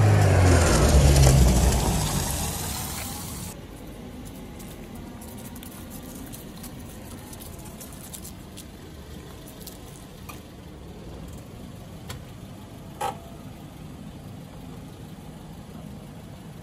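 Toyota Vios sedan driving past at low speed over paving blocks, its engine and tyre noise swelling and then fading over about three seconds. After that the sound cuts suddenly to a steady faint outdoor hiss with a few small clicks.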